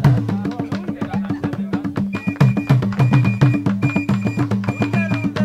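Music with a quick, steady percussion beat: a repeating figure of low pitched notes over sharp clicks, with a short high tone sounding several times in the second half.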